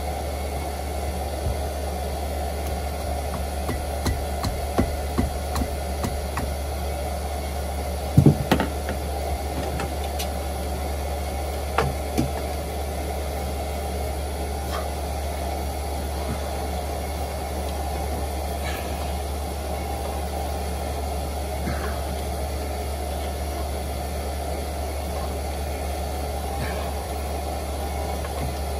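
Scattered knocks and clicks from hands working on a Universal Atomic 4 four-cylinder marine engine with its head off, turning it over by hand at the pulley. The loudest knock comes about eight seconds in, over a steady low hum.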